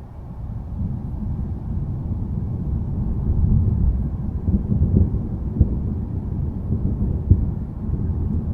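Rolling thunder: a deep, low rumble that swells a few seconds in and keeps going, with a couple of sharp cracks in the middle.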